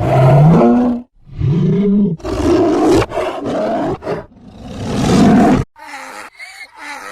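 A large wild animal giving several loud, drawn-out roaring calls, the first two rising in pitch. Near the end they stop abruptly and fainter, short repeated calls of another animal follow.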